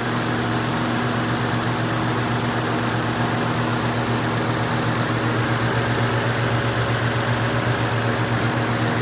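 A 1995 Toyota 4Runner's 3.0-litre V6 idling steadily on a newly fitted timing belt and water pump, with the timing set by the owner.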